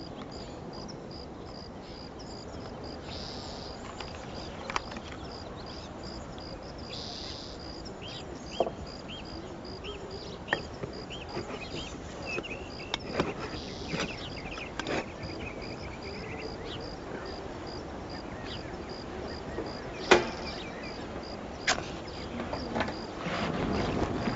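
Crickets chirping in a high, even, regular pulse, with a few scattered light clicks and knocks and one sharper knock about twenty seconds in.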